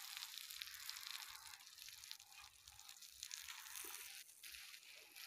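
Faint sizzling of sliced sucuk frying on a marble slab heated by a wood fire: a fine steady hiss with tiny crackles.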